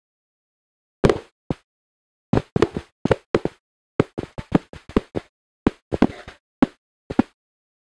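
Irregular run of about twenty sharp knocks and rustles, starting about a second in, from a handheld microphone bumping and rubbing against a lectern and the pages of a Bible as they are turned.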